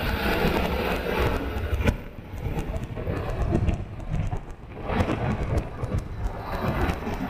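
Wind buffeting the microphone of a camera mounted on a moving car, over a low rumble of road and traffic noise. It dips quieter for a moment around two seconds in and again around four seconds in.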